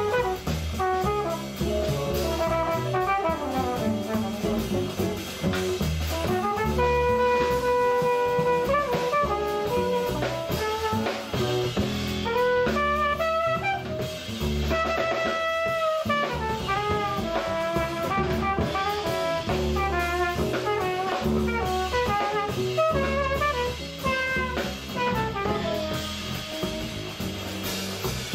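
Live jazz: a trumpet plays a solo line of held and quick running notes over a walking upright bass and drum kit.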